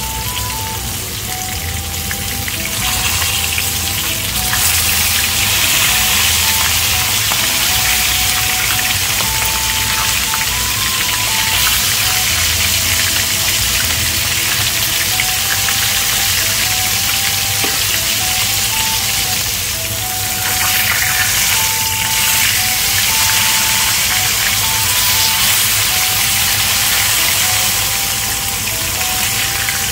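Chicken thighs sizzling steadily in hot oil in an enameled cast-iron pan, searing skin side down to crisp the skin. A simple background melody plays along.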